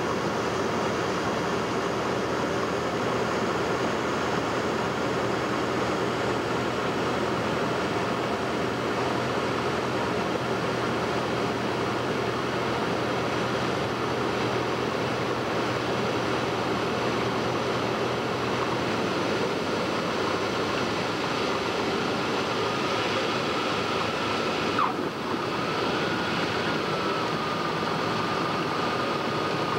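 Cockpit noise of a Cessna 150L landing: the Continental O-200 four-cylinder engine and propeller running steadily under a haze of airflow noise. A thin steady tone comes in about two-thirds of the way through, and there is a brief bump about five seconds before the end, around the time the wheels are on the runway.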